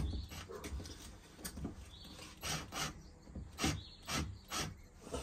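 DeWalt XR cordless drill-driver driving a fixing through a metal bracket into a wooden door in about five short bursts, the fixing grating into the wood.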